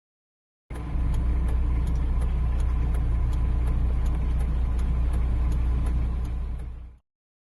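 A motor vehicle running: a steady low rumble with faint high ticks about three a second. It starts abruptly and fades out shortly before the end.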